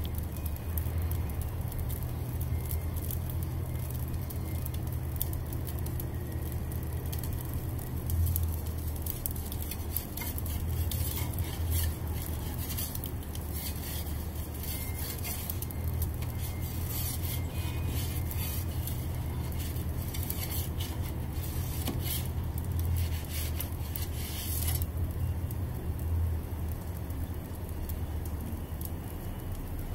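Ooni Koda 16 gas pizza oven's burner running, a steady low rumble, with scattered light metallic clinks and scrapes in the middle stretch.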